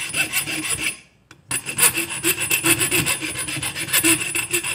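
Single-cut hand file stroking back and forth across the metal jaws of a pair of pliers clamped in a bench vise: a finishing pass to smooth the jaws. Quick, even rasping strokes, with a short pause about a second in.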